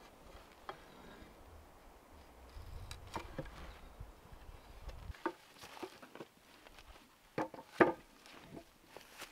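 A wooden board handled on a wooden workbench: scattered knocks and clunks of wood on wood, with two sharp knocks close together about three-quarters of the way through as the board is lifted.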